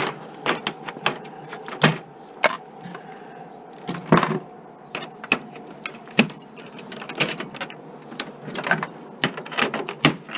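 Irregular clicks, snaps and knocks of plastic and aluminum TV parts being pried apart and handled by hand, dismantling a screwless TV casing for scrap.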